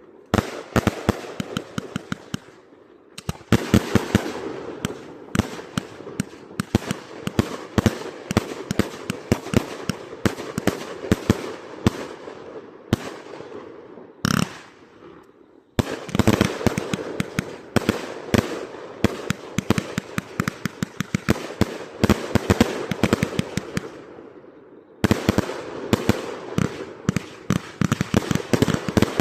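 Multi-shot firework cakes firing: long volleys of rapid, dense bangs and crackles, broken by short lulls about three seconds in, around the middle and near the end before firing picks up again.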